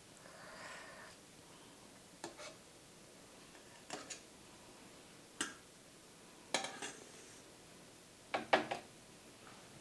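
A utensil knocking and scraping against the rim and sides of a large stew pot while the stew is skimmed: a handful of light clinks a second or two apart, the last two near the end the loudest.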